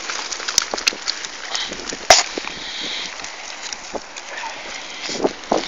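Nylon fishing keepnet being gathered up by hand: soft rustling of the mesh and its rings with scattered light clicks, one sharper click about two seconds in.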